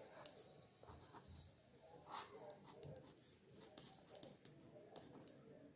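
Faint scratching of a felt-tip pen drawing short strokes on paper, a series of brief scrapes and taps spread through.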